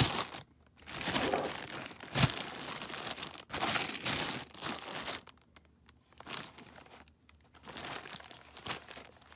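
A plastic zip-top bag crinkling while loose 7.62×39 rifle cartridges clink together inside it as it is picked up and shifted, in several bursts over the first five seconds, with one sharp knock about two seconds in. Softer handling of small cardboard ammo boxes follows.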